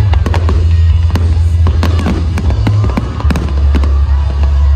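Fireworks display: a rapid run of bangs and crackling from bursting shells. Loud music with a heavy bass plays under them.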